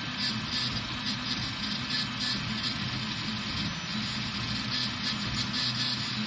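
Tevo Black Widow 3D printer printing: its stepper motors hum in short runs of shifting pitch as the print head moves, over the steady hiss of the hotend cooling fan.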